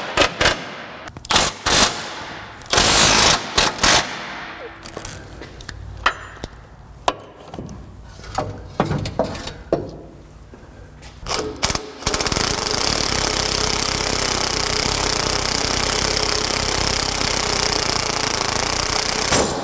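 Cordless impact wrench hammering in short bursts on the 24 mm control arm bolts of a GMT400 truck's front suspension, with scattered clicks and metal knocks in between. About twelve seconds in, the impact wrench runs steadily on the spring compressor of a front coil spring clamped in a vise, releasing the spring.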